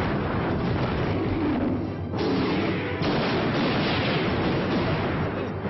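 Explosion sound effects for a magical blast: loud, dense rumbling blasts, with fresh blasts starting about two seconds in and again about three seconds in, over a film score.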